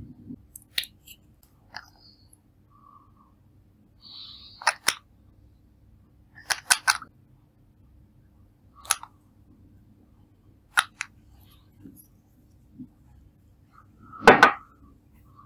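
Clear slime being handled and mixed, giving sparse sharp clicks and pops every second or two, with a longer, louder crackling squelch near the end.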